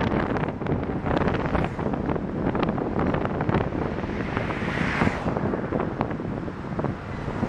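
Wind buffeting the microphone of a moving vehicle, with a steady rumble of street traffic under it. A brief hiss swells and fades about five seconds in.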